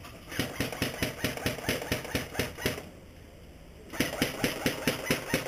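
Airsoft electric gun, an Umarex UMP .45, firing full-auto in two long bursts with a pause of about a second between, a rapid even clatter of the gearbox cycling. Right afterwards the shooter says there is no magazine in it, so it is cycling empty.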